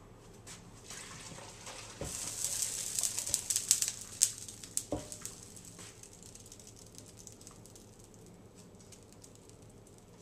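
Sauce mixture poured from a skillet over country-style ribs in a pot: about two seconds in, a spell of hissing and crackling lasting about two seconds, then a sharp clank of the pan or a utensil. Fainter crackling dies away after it.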